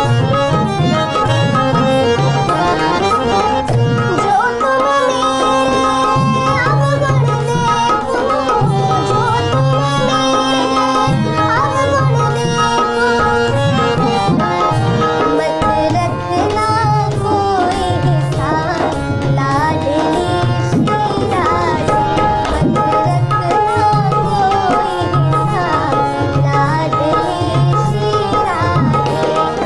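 Devotional bhajan music: tabla keeps a steady rhythm under a melody of held and gliding notes.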